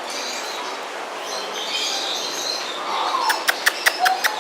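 Birds chirping and calling over a steady background hiss, then a quick run of about seven sharp clicks near the end.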